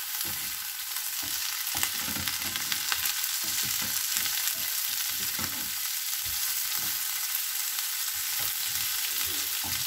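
Cabbage sizzling as it fries in a pan, stirred with a wooden spatula that scrapes through it in irregular strokes over a steady hiss.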